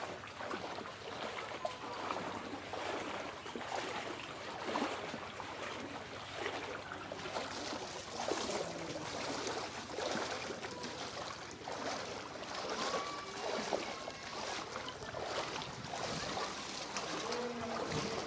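Swollen, flooding river water running and lapping: a steady wash of water noise with small irregular splashes.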